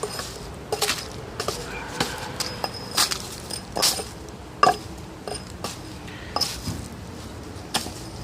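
Irregular sharp knocks and clicks of wood being worked and handled with a hatchet, some with a short high clink, the loudest knock a little past halfway.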